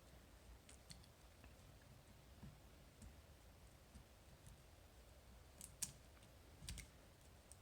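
A few faint, scattered clicks of lock-picking tools working the pins of a Medeco lock, picking it back to the closed position, with two slightly clearer clicks near the end.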